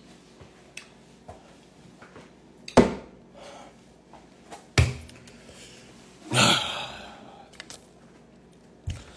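A few separate knocks and thuds of a person moving about and handling things in a small room, with a short rushing sound about six and a half seconds in.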